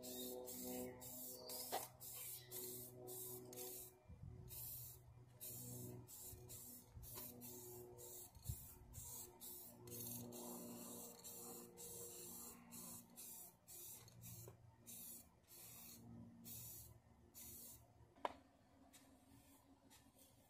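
Faint hiss of a Rust-Oleum aerosol spray paint can, sprayed in many short bursts a few times a second, over soft background music. A single click sounds near the end.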